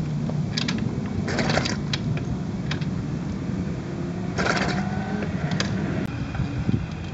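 Honda Super Cub 110 engine turned over twice by its kick-starter with the drain bolt out, to push out the remaining oil: two brief whirring rattles over a steady low hum.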